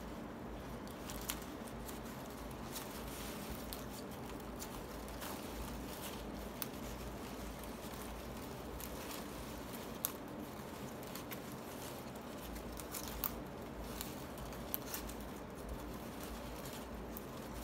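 Palm-leaf strips rustling and ticking as they are threaded and pulled through a hand-woven braid, with a few sharp little clicks now and then.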